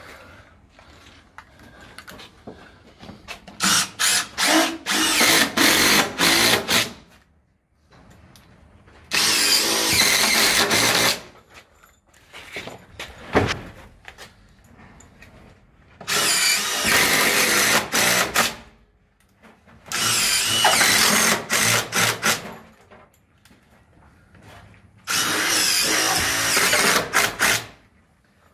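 Cordless drill driver running in about five bursts of one to two seconds, the first one stuttering in short spurts, as screws are driven through AAC wall panels into the battens behind.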